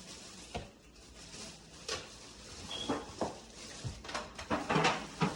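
Scattered light knocks, clicks and rustles of people handling food, wrappers and tableware while eating, clustered more densely near the end.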